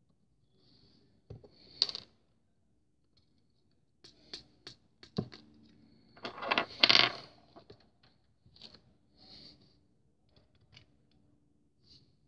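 Small plastic parts clicking and tapping as the landing-gear pieces of a 1:200 model airliner are handled and fitted. A louder scraping, rubbing burst comes about six to seven seconds in, among scattered light clicks.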